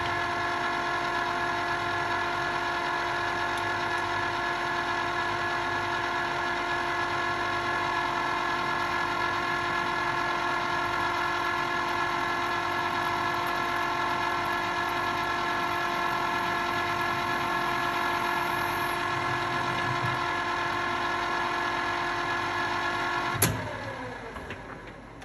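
Metal lathe running at a steady speed with a whine of several steady tones as it centre-drills an aluminium bar. Near the end it is switched off with a click and winds down, the whine falling in pitch as it fades.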